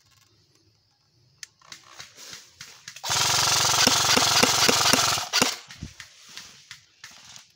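Airsoft rifle firing one full-auto burst close by, about two seconds long, starting and stopping abruptly, loud against faint scattered clicks and rustling.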